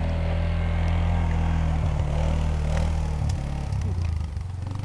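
ATV (quad bike) engine running steadily, a low even hum that holds throughout.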